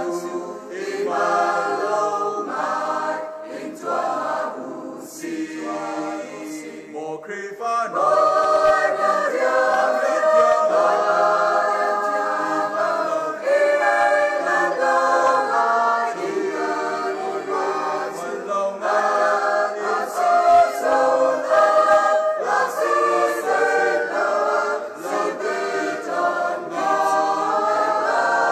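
Mixed choir of men and women singing together. The singing goes softer a few seconds in, then swells fuller and louder about eight seconds in.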